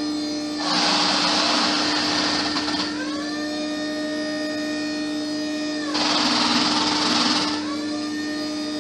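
Electric hydraulic power steering pump from a Toyota MR2 running with a steady whine. Twice it turns loud and hissy for a second or two as the steering is loaded, its pitch sagging and climbing back as the load comes off; under load it pulls over 50 amps.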